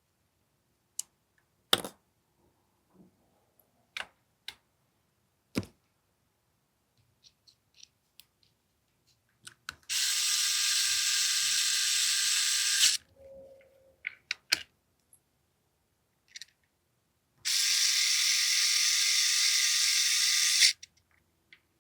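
Small electric screwdriver whirring in two runs of about three seconds each, driving screws in, between scattered light clicks of parts and tools being handled.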